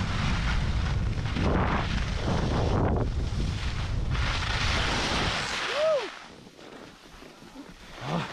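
Wind rushing over the helmet-camera microphone and skis hissing and scraping on packed snow during a fast downhill run. The noise swells and fades with each turn. Near six seconds a short tone rises and then falls, and the noise drops off sharply as the skier slows almost to a stop.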